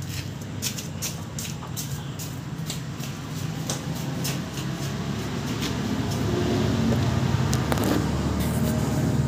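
A steady low engine hum, growing louder over the last few seconds, with scattered light clicks and taps.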